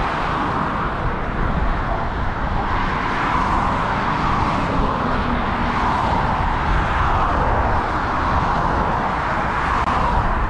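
Steady rush of wind and road noise from riding an e-bike through city streets, with traffic in the background.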